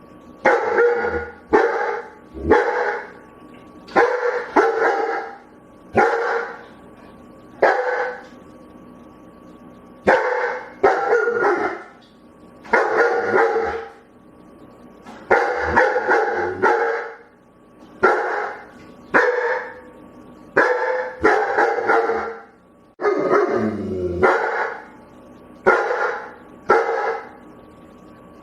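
A dog barking over and over, single barks and quick runs of two or three, with short pauses of a second or two between them.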